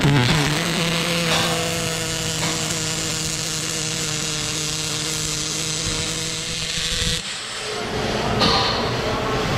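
MIG wire-feed welding arc burning on thick steel plate: a steady crackling sizzle over a constant hum. It cuts off sharply about seven seconds in, when the trigger is released.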